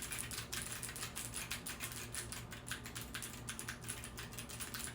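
Fast, steady typing on a Keychron Q7 aluminium-bodied mechanical keyboard with Gateron G Pro Blue switches, a quick run of many sharp keystroke clicks a second, with a satisfying thocky sound.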